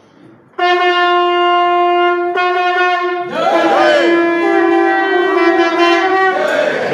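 Conch shells (shankha) being blown: one starts suddenly about half a second in with a steady note, then several more join in about three seconds in, their notes bending and wavering against one another.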